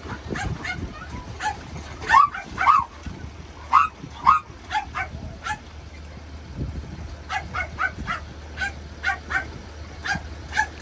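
Several crated dogs barking and yipping, short high barks coming in quick irregular runs from different dogs, over a steady low hum.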